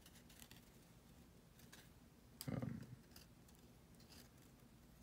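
Near silence with a few faint clicks and rustles of baseball trading cards being handled, plus one short low sound about two and a half seconds in.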